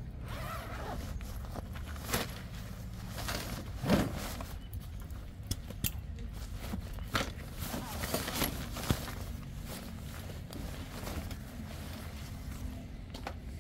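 Footsteps and scattered knocks and clatter, with one louder thump about four seconds in, over a low steady hum; faint voices now and then.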